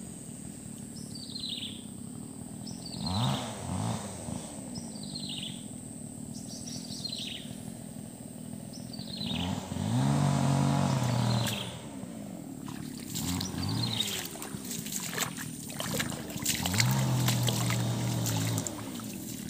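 A bird calls over and over with short, downward-sliding whistles, about one every second and a half, through the first half. Three times a low, pitched hum swells and fades, loudest about ten seconds in. Rustling noises come in during the last few seconds.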